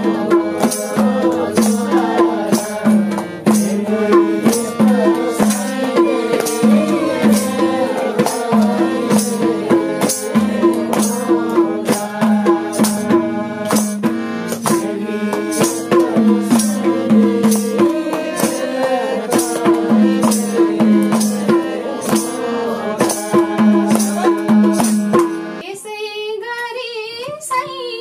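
Nepali folk song with a steady drum beat under instruments and singing. Near the end the backing and drum cut out and a single voice carries on singing alone.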